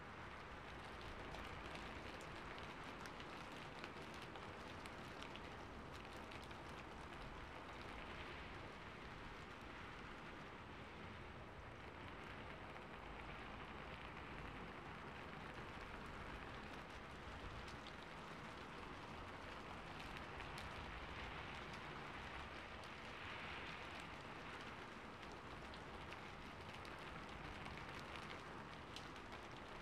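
Calm, steady rain: an even hiss of many drops with scattered light ticks.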